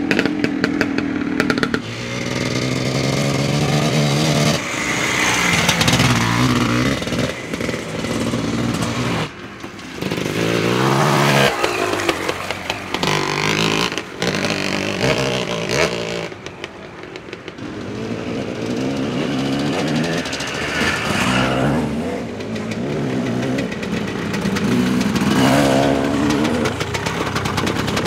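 Vintage enduro motorcycles revving hard as they pass one after another, the engine pitch rising and falling as riders open and close the throttle, with abrupt changes from one bike to the next.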